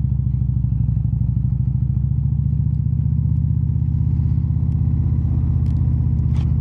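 An Indian cruiser motorcycle's V-twin engine running at a steady low speed as it rides along, its exhaust pulsing evenly with no change in revs.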